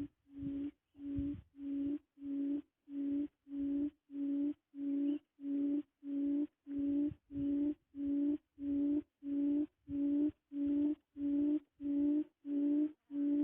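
A quail's low hooting call, one short note on a single pitch repeated evenly about one and a half to two times a second.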